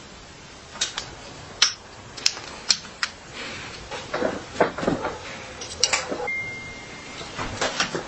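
Tools and bicycle parts being handled during restoration work: a run of sharp metal clicks and knocks, with a stretch of scraping a little past the middle.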